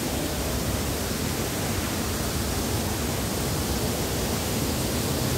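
Steady rush of water from a park fountain falling over rocks.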